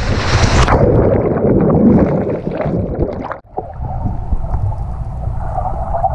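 Water noise as the camera goes under the pool surface just under a second in, then the muffled sound of being underwater: a low rumbling of moving water with bubble clicks, and a faint steady hum in the second half.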